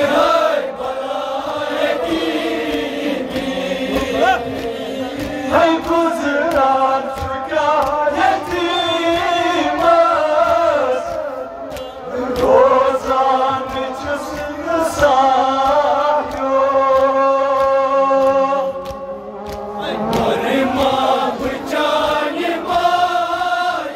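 Male voices chanting a Kashmiri nouha, a Shia mourning lament, led by reciters singing into handheld microphones.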